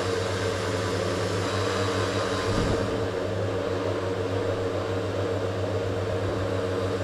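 Electric blender motor running steadily, blending milk and frozen cherries; its high hiss drops a little about three seconds in.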